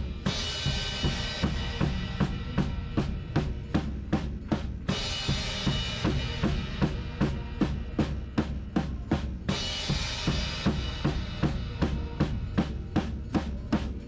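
Acoustic drum kit played in a steady groove: kick and snare hits about three to four a second, with a cymbal crash ringing out at the start and again about five and nine and a half seconds in.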